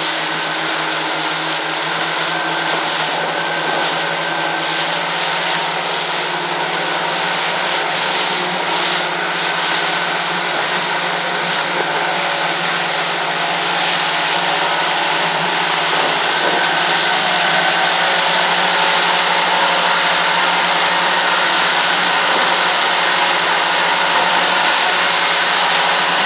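Motorboat running at speed on open sea: a steady engine drone under the constant rush of water and spray from the hull and wake.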